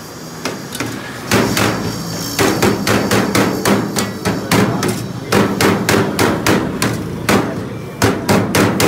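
Steel cleaver chopping shaved chicken shawarma on a steel tray: a fast run of sharp metal-on-metal knocks, about three a second, starting about a second in.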